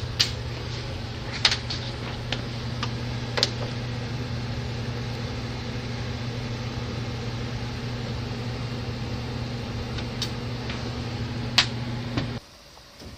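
Steady low machine hum with a few sharp clicks and taps over it; the hum cuts off suddenly near the end.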